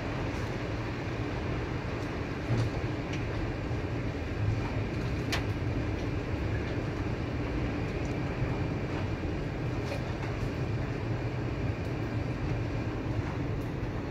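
Steady rain falling, over a low, steady city rumble, with a few sharp ticks of drops landing close by, the loudest about five seconds in.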